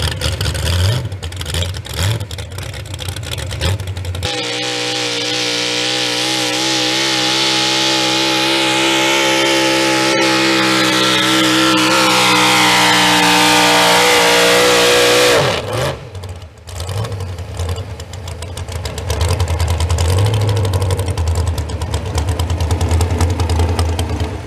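Modified pulling pickup trucks running flat out while dragging a pulling sled. After a sudden change about four seconds in, one engine holds a steady high drone that grows louder for about eleven seconds, then drops away abruptly as the pull ends. A lower, rougher engine sound follows.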